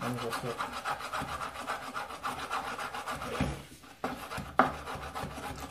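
Knife rapidly slicing a cucumber on a wooden chopping board, a quick run of short chopping strokes several times a second with the blade tapping the board. The strokes pause briefly about three and a half seconds in, then resume with one sharper knock.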